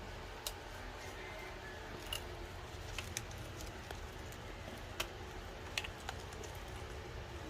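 Scattered small sharp clicks and taps, about seven in all, from hands working at an open light-switch box, handling switch, wires and tools, over a steady low hum.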